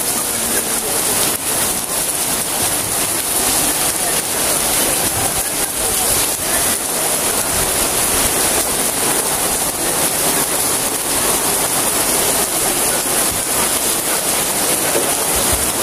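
Heavy rain pouring down steadily: the dense, even hiss of a downpour.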